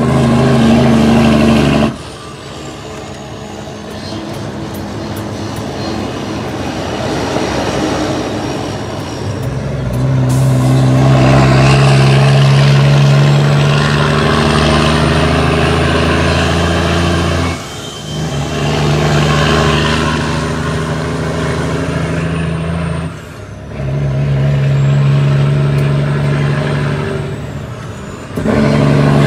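Cummins ISX inline-six diesel in an International ProStar truck running under load. Its sound drops off briefly several times and comes back, as the throttle is lifted for gear changes on the 18-speed transmission.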